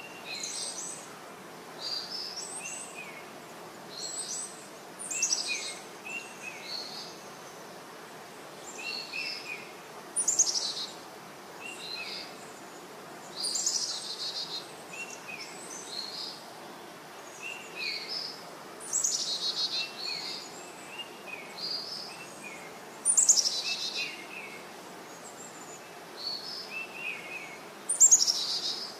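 Birds calling and singing, with short chirps and louder notes sweeping downward every second or two over a steady background hiss.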